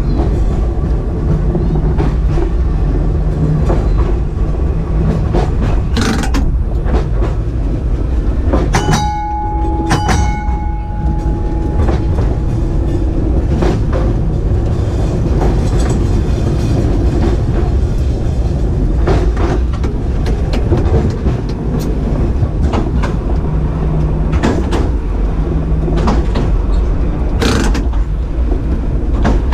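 Electric tram running along the track, heard from the driver's cab: a steady rumble with scattered clicks and knocks, and a brief ringing tone about nine seconds in.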